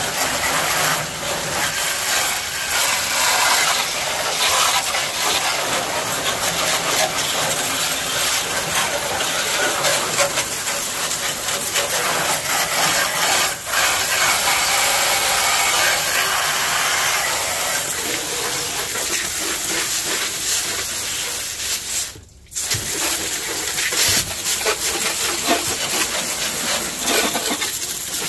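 Water spray hissing steadily as it hits the underside of a pickup's hood and the engine bay, with a brief stop about 22 seconds in.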